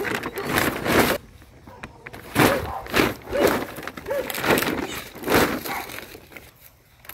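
Leafy garden vegetables rustling and crackling as they are handled and broken off, in irregular bursts.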